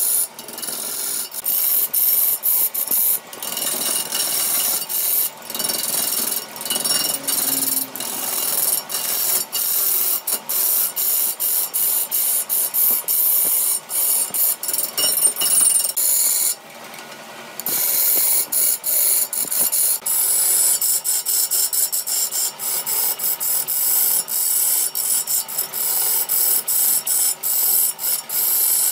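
Wood-lathe turning tool cutting into a large spinning wooden blank: a loud, hissing scrape of steel on wood, broken by many short pauses as the tool eases off the cut. There is a longer break about seventeen seconds in.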